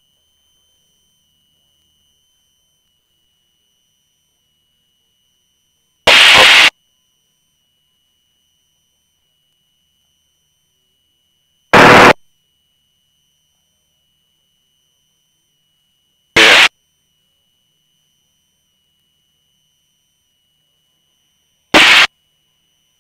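Aviation radio receiver giving four loud, short bursts of static, each about half a second long and roughly five seconds apart, over a faint steady high tone.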